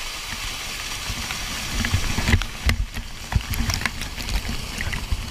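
Pool water rushing and splashing against an inflatable donut float, a steady wash at first, then heavier splashes and thumps from about two seconds in.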